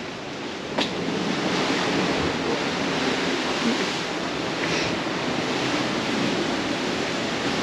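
Atlantic Ocean surf washing steadily, a continuous rush of water, with one sharp click just under a second in.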